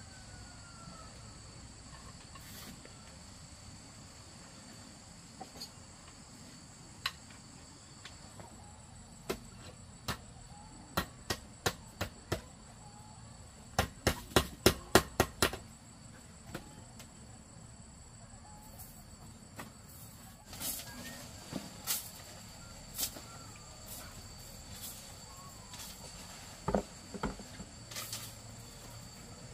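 Scattered sharp knocks from work on the house, with a quick run of about six knocks about halfway through, over a steady high insect drone.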